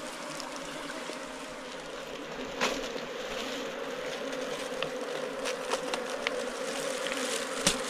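A swarm of giant honey bees buzzing steadily and densely around their nest as its honeycomb is cut out, with a couple of light knocks.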